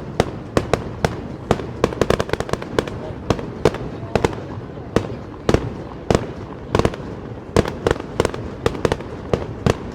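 Fireworks bursting in a rapid, continuous string of sharp bangs, several a second, with a quick cluster of reports about two seconds in.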